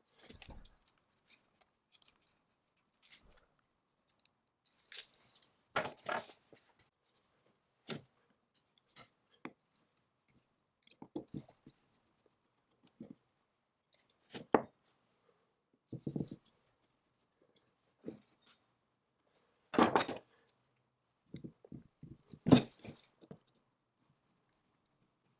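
Small metal parts of an antique Hypress blower being handled and worked with a flat screwdriver on a wooden bench: scattered clinks, clicks and knocks, with two louder knocks near the end.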